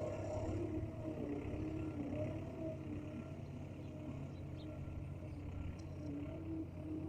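A mini bulldozer's engine running steadily, a low rumble with a wavering whine over it.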